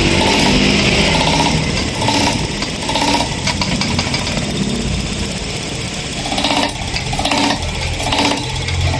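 An engine or motor running steadily, with repeated short pulses over it.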